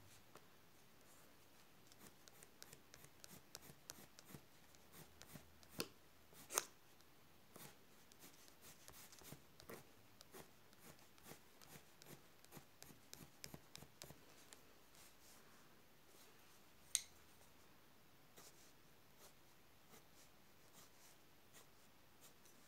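Faint, quick scratching of a colored pencil hatching back and forth on paper, with a couple of sharper clicks about six seconds in and again near seventeen seconds.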